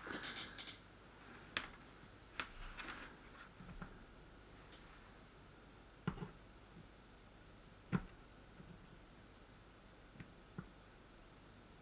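Faint, short high-pitched chirps from a faulty smart plug's switch-mode power supply, about one every second and a half, which pulse with the switching IC as it fails to hold any output voltage. The repairer suspects failed capacitors. A few sharp clicks come in between.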